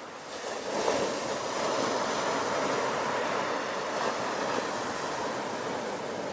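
Sea waves breaking on a shore: a wave comes in under a second in and then a steady rushing wash of surf.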